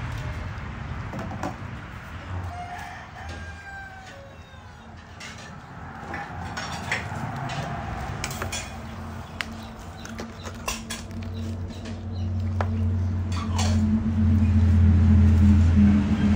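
Chickens clucking and a rooster crowing, over scattered sharp clicks. A steady low drone comes in about eleven seconds in and grows loud near the end.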